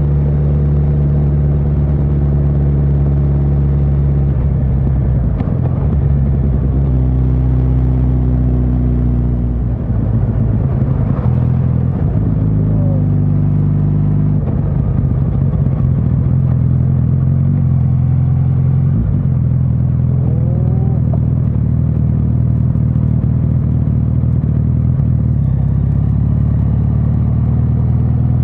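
Suzuki GSX1300R Hayabusa's inline-four engine running on the move, its pitch stepping up and down a few times as the revs change.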